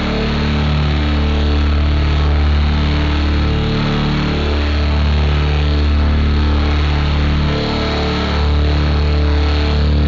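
Fuzz-distorted electric guitar feedback: a loud, steady low drone with a buzzy, noisy top, dipping briefly about four and eight seconds in.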